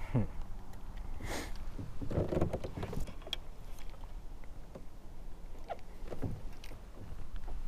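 Handling noise from a spinning rod and reel and a lure: scattered clicks, knocks and brief rustles, over a low steady rumble.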